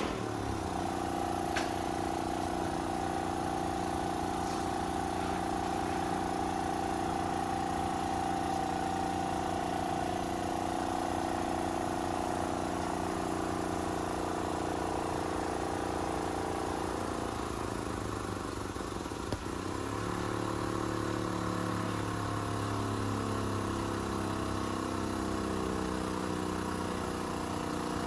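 An engine running steadily, its pitch shifting lower about two-thirds of the way through and then settling at a new steady note.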